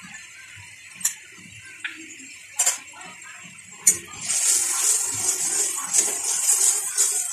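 Grated-onion masala frying in oil in a steel kadai, with a few sharp clicks in the first few seconds; from about four seconds in, stirring with a metal spatula sets off loud, steady sizzling.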